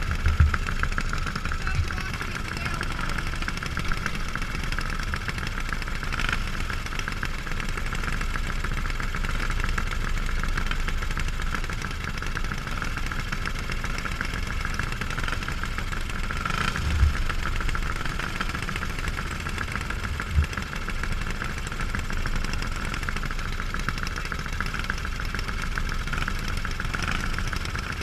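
Small go-kart engine idling steadily, with a few brief low thumps, the loudest about 17 and 20 seconds in.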